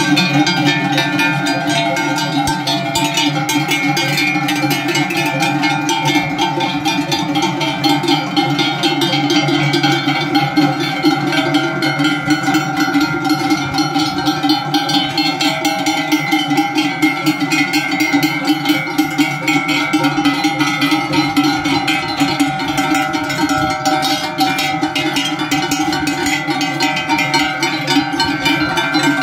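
Many large cowbells hung from the necks of walking cows, clanging without a break in a dense, overlapping jangle.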